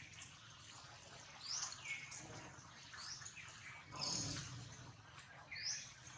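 Birds chirping in the trees: a few short, high calls that slide down in pitch, spaced irregularly about a second apart, over faint outdoor background noise.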